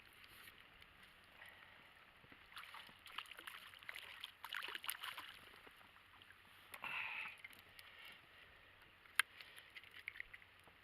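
Quiet handling noises in an inflatable fishing boat: scattered rustles and small clicks, a short squeak about seven seconds in, and one sharp click just after nine seconds.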